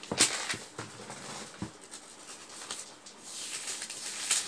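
Pages of a Bible being leafed through: soft rustling with a few sharper page flicks, the loudest just after the start and again near the end.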